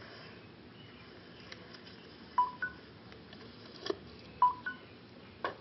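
Electronic beeping: two short two-note beeps, each stepping from a lower tone up to a higher one, about two seconds apart. There are a few sharp clicks between them and near the end.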